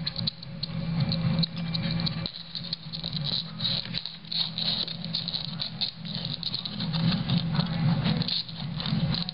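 Shih tzu's claws scrabbling and scratching on a hardwood floor as it paws under a pet gate for a ball, with quick irregular scrapes and light rattling.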